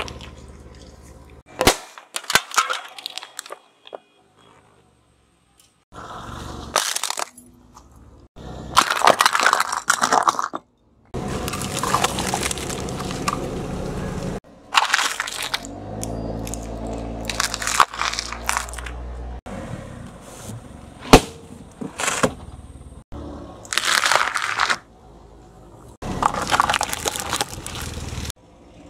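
A run of separate crushing sounds as a car tyre rolls over plastic toys, tubes and packaging on asphalt: short bursts of cracking, crunching and crackling plastic, with abrupt cuts between them. A low rumble from the car runs under one stretch in the middle.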